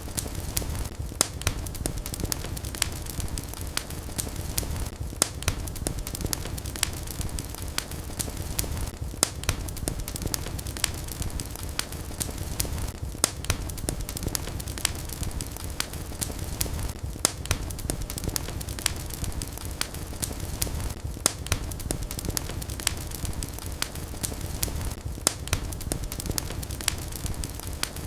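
Fire burning in a fireplace, crackling and popping: frequent sharp, irregular crackles over a steady low rumble of the flames.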